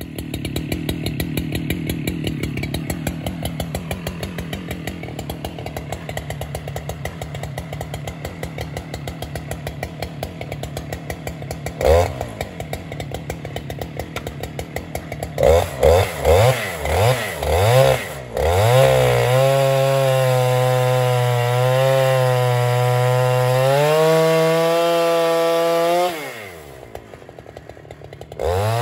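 Husqvarna 395XP two-stroke chainsaw on an Alaskan mill, running with a pulsing drone and a single knock partway through. It is then blipped up and down several times, held at high revs for about seven seconds, dropped back to idle, and revved again near the end.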